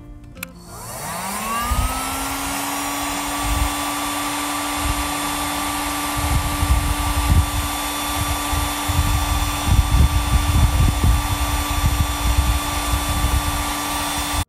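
Heat gun switched on, its fan motor spinning up to a steady whine within about two seconds and then blowing steadily with a rush of air, as it heats solder sleeves. Uneven low rumbling comes and goes over the second half.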